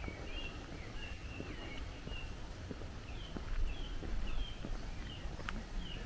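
Small birds chirping in quick, short repeated notes, over the walker's footsteps crunching on a gravel path.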